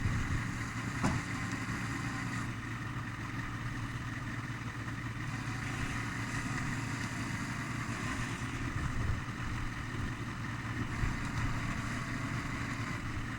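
A steady low engine-like rumble running evenly, with a short knock about a second in.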